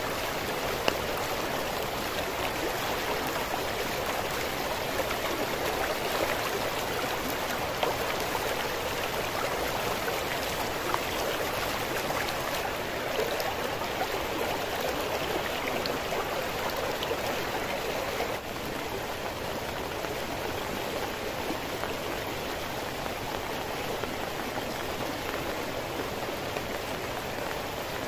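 Swollen, muddy river rushing past in heavy rain, a steady rushing noise of flowing water and falling rain. About two-thirds of the way in it drops a little quieter.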